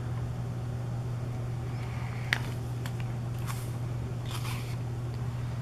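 Pages of a CD album's photo book being handled and turned: a sharp tick a little past two seconds in, then two short paper rustles, over a steady low hum.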